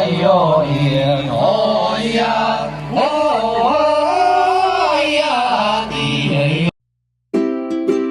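A melody sung on vocable syllables like 'hu a i ya', chant-like with pitch slides between held notes. It cuts off abruptly near the end, and after a brief silence a ukulele begins strumming chords.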